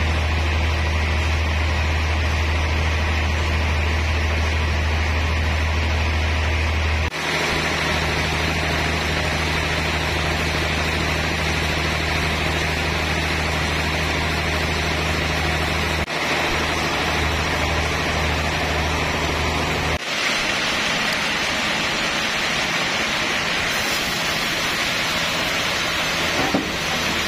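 Band sawmill machinery running steadily with a constant hum and hiss. The sound changes abruptly three times, and there is a brief knock near the end.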